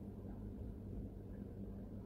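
Steady low hum with faint room noise, unchanging throughout.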